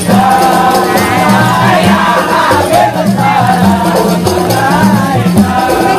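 Hadrah music: voices singing together over a steady beat of frame drums, with shaking rattles or jingles on top.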